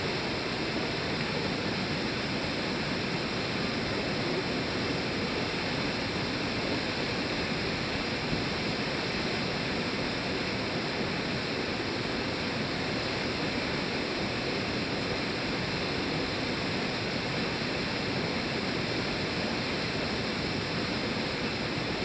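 Waterfall pouring down a smooth rock face into a pool: a steady, unbroken rush of falling water.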